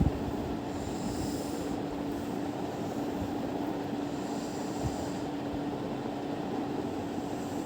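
A steady mechanical hum with one constant low tone, with two soft hisses about one and four seconds in.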